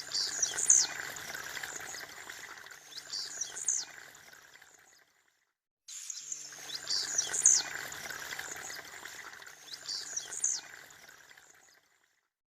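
Blue-black grassquit (tiziu) singing its short, sharp, buzzy high song, four times in pairs, over a steady hiss like running water. The sound cuts out briefly about five seconds in and again near the end.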